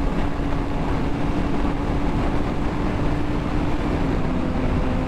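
Suzuki GSX-R sportbike's inline-four engine running steadily at highway cruising speed under heavy wind rush on the microphone. The engine note dips slightly about four seconds in.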